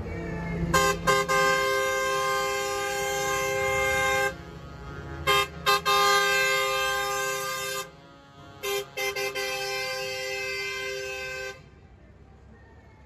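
Horns of passing decorated tour buses sounding a multi-note chord in long blasts broken by short toots, louder at first and quieter from about eight seconds in, stopping suddenly near the end, over a low engine rumble.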